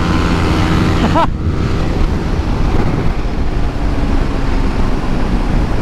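Heavy wind rush over the helmet microphone and the Yamaha R15's single-cylinder engine running at speed on a highway, with a brief voice about a second in.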